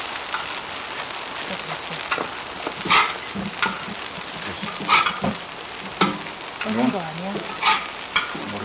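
Grated old-pumpkin pancakes sizzling in oil on an iron cauldron-lid griddle (sotttukkeong), a steady frying hiss. Metal and wooden utensils scrape and clink sharply several times as the pancakes are pressed and oil is spooned on.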